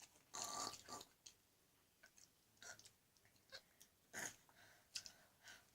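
Faint, intermittent chewing of sour gummy rope candy, in short irregular mouth sounds, with one brief louder noisy sound about half a second in.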